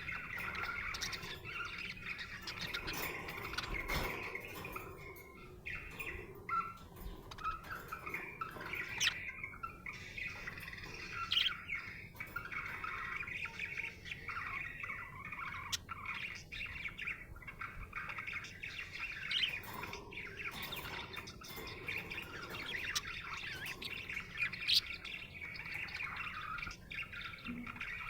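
Budgerigar chattering without pause: a busy stream of short chirps and warbled notes, with a few sharper, louder chirps scattered through.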